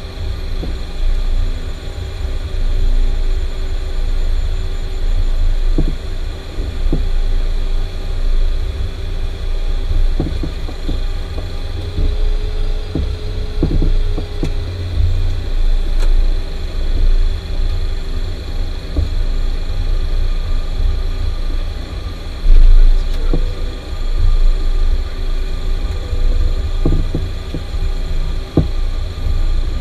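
Cockpit sound of an Avro RJ100 on the ground: its four Lycoming LF507 turbofans run with a steady low rumble and a constant whine while it taxis onto the runway. Occasional thumps come through, and a brief louder surge of rumble a little past two-thirds of the way through.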